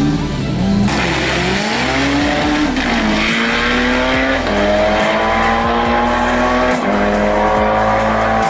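Turbocharged SR20DET four-cylinder in a Nissan Silvia S13 drag car at full throttle, accelerating hard through the gears. The pitch climbs steadily and drops back at each upshift, about four times.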